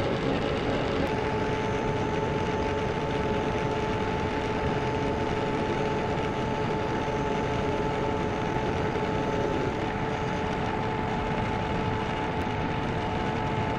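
Holtzapffel ornamental turning lathe at work: the belt-driven universal cutting frame spins its cutter into the turning wooden cylinder, cutting a spiked pattern. It gives a steady whirring rush with two steady humming tones running through it.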